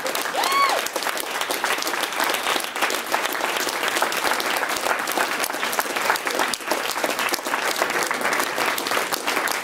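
Audience applauding steadily, a dense patter of many hands clapping. About half a second in, one short call rises and falls in pitch above the clapping.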